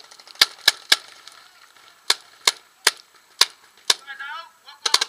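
Paintball markers firing: three quick shots, then single shots about every half second, and a rapid burst near the end, with a brief shout partway through.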